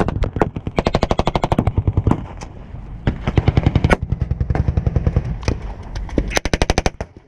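German WWII-style machine gun firing blanks close at hand inside a wooden bunker, in several long bursts of rapid shots with a few single shots in between.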